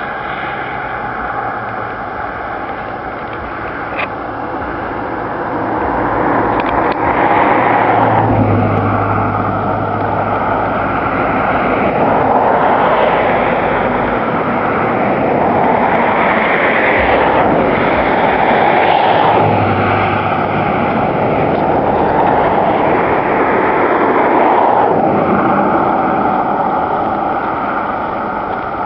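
Steady vehicle noise that swells and fades several times.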